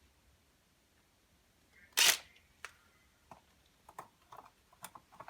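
One sharp knock about two seconds in, then a run of light clicks and taps.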